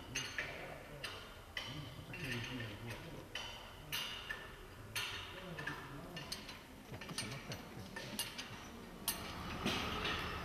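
Irregular sharp clicks and metallic clinks, about one or two a second, over faint murmuring in the background; a steady mid-pitched hum comes in near the end.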